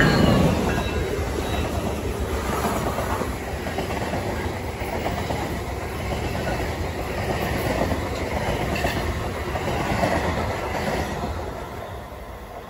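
NJ Transit electric locomotive and its train of double-deck coaches passing close at speed, wheels clattering over rail joints and switch track. Loudest as the locomotive goes by at the start, fading near the end as the last car passes.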